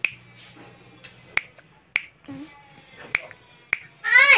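Fingers snapping, five or six sharp snaps at uneven intervals. Near the end a high-pitched voice cuts in, louder than the snaps.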